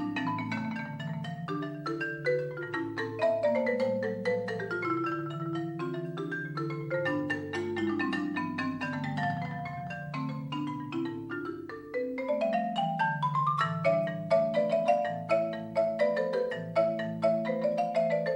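Mallet percussion music, marimba-like: quick runs of struck, ringing notes over a lower sustained part. A fast rising run comes about twelve seconds in, after which the playing is louder with sharper strokes.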